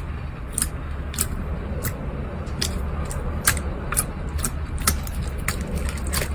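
Slime being handled and pressed, giving sharp popping clicks about twice a second over a steady low rumble.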